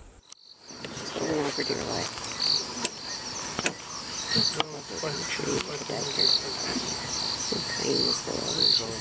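Crickets and other night insects trilling steadily, with a louder high chirp repeating about once a second.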